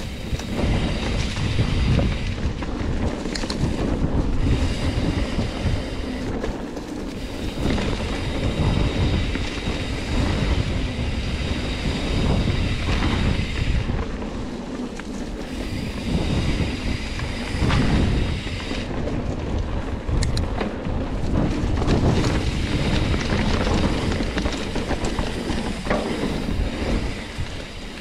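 Trek Roscoe 9 hardtail mountain bike rolling fast over dirt singletrack: continuous tyre rumble on the trail with the frame and parts rattling over bumps, and wind buffeting the microphone.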